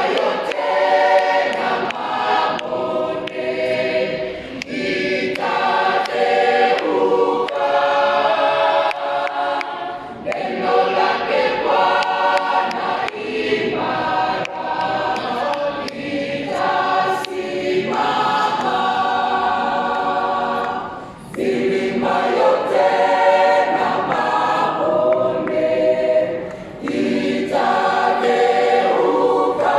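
Mixed choir of women and men singing a gospel song in harmony, with no instruments, under a conductor, in sung phrases with brief breaks about ten, twenty-one and twenty-seven seconds in.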